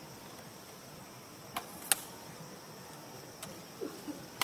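A few short, sharp clicks over a steady outdoor hiss, two close together about a second and a half in, the second of them the loudest, and a few fainter ones near the end.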